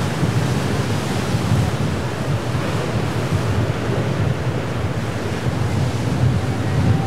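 Surf breaking and washing over a rocky inlet jetty, with wind buffeting the microphone as a steady low rumble.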